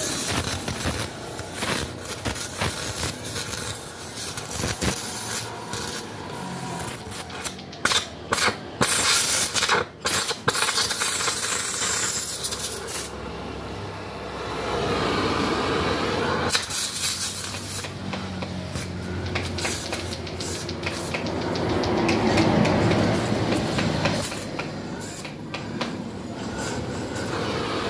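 Metal being cut open at the rear end cap of a Yamaha Mio motorcycle muffler: an uneven scraping, hissing noise full of sharp crackles. It breaks off briefly a few times about a third of the way in.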